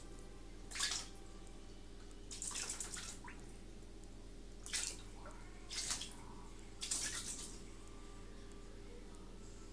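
Shallow bathwater splashing and dripping in a bathtub as a cat paws at it, in five short bursts over a low steady hum.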